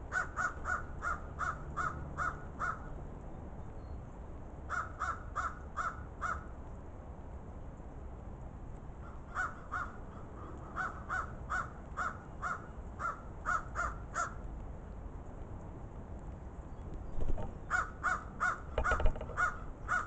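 Crows cawing: runs of short, evenly spaced caws, about three a second, coming in five bouts with pauses between them. A couple of thumps near the end.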